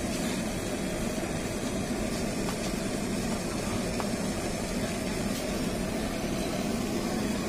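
Steady hum of street traffic, engines running, with a couple of faint clicks.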